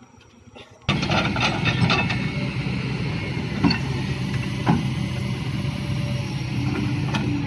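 Hydraulic excavator's diesel engine running under load as its bucket scoops and drops soil into a dump truck's bed, with a few sharp knocks. It comes in suddenly about a second in, after a faint quiet stretch.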